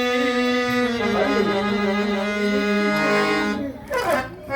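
Harmonium playing the melody of a Marathi devotional song in long, held notes. The music drops away briefly near the end and a note slides down.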